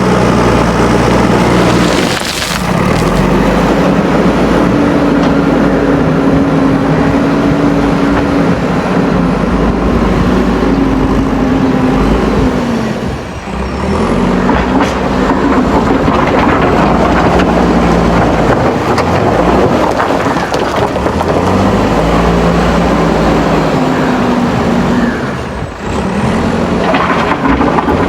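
A JCB backhoe loader's diesel engine working under load, its note rising and falling as it is revved. The sound drops briefly three times: about two seconds in, around halfway and near the end.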